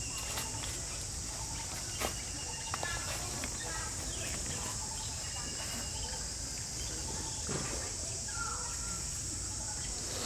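Steady high-pitched insect chorus, with scattered short chirps and squeaks over it and a low rumble underneath.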